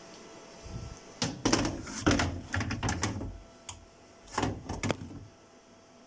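Knocks and clatter of hard plastic and metal parts being handled as a refrigerator's fan motor and its plastic housing are worked loose: a run of sharp irregular knocks over several seconds, loudest in the middle.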